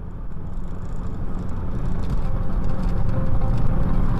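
Car driving at speed, recorded by its dash cam: a steady low rumble of road and engine noise that grows louder over the first couple of seconds.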